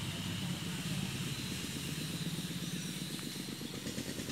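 A steady low mechanical hum, with a faint high whine above it.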